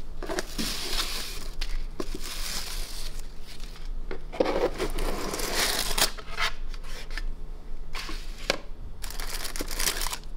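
A cardboard gift box being unboxed by hand: the lid scraping off and tissue paper rustling and crinkling, in uneven bursts with short pauses and a few light clicks.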